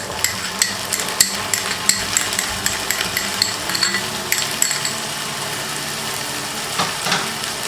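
Onions frying in ghee in a pan with a steady sizzle, while a spoon taps and scrapes as onion paste is added. The clicks and scrapes are frequent over the first few seconds, then the sizzle runs on with only a couple more taps near the end.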